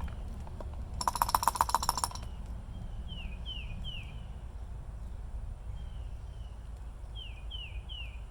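A bird calling outdoors: short downward-slurred notes in quick groups of three, repeated several times. About a second in, a louder rapid rattle of clicks lasts about a second.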